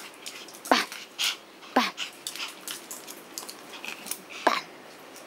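A white Pomeranian whining in three short cries that fall in pitch, begging for a treat, with faint clicks between the cries.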